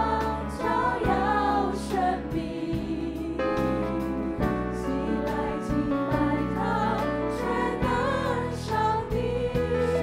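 Worship music: several voices singing together over sustained instrumental chords, with regular percussion strikes.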